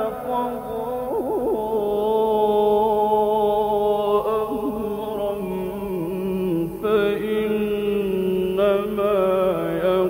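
A male Quran reciter's voice chanting in the drawn-out mujawwad style, holding long wavering notes in a slow melisma with no clear words. It is an old recording with a dull top end.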